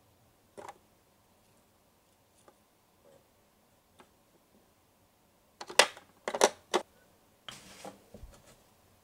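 A tiny plastic plate and miniature pieces being handled and set down on a plastic toy kitchen counter: faint taps early, a quick run of sharp clacks a little past halfway, then a short scrape and bump near the end.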